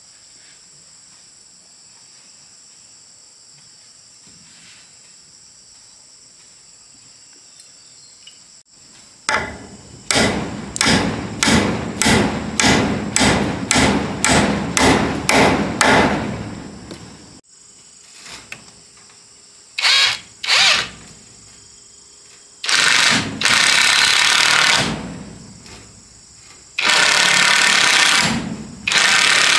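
Crickets chirring steadily. About nine seconds in, a power drill starts in short bursts, about two a second for some seven seconds, then runs twice briefly and twice for two to three seconds at a time.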